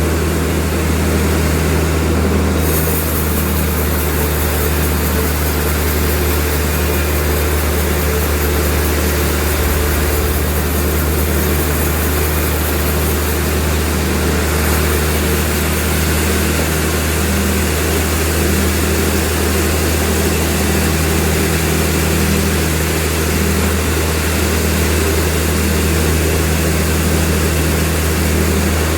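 Sawmill machinery running with a steady low engine drone that holds an even level throughout.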